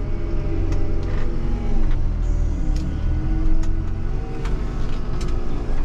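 Schäffer 8620T wheel loader's engine running with a steady low rumble, heard from inside the cab; its pitch dips and then climbs again about two to four seconds in as the machine pushes its bucket into the dung heap. A few sharp clicks and rattles come from the machine.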